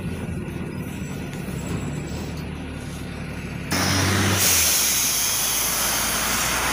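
LiAZ 5292.67 city bus: a low engine and road rumble heard from inside the cabin while riding, then, after a sudden change about 3.7 s in, the bus passing close by outside and pulling away as a loud rushing hiss over its engine noise.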